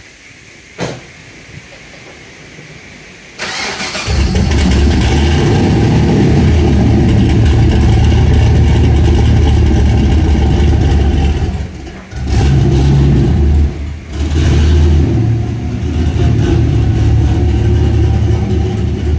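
A single knock about a second in, then the turbocharged V8 of a Camaro IROC-Z is started and runs loud and heavy as the car pulls away, dropping off briefly twice near the middle.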